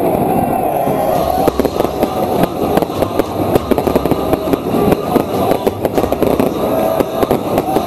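Firecrackers going off in quick, irregular succession over a large crowd of football supporters shouting and chanting.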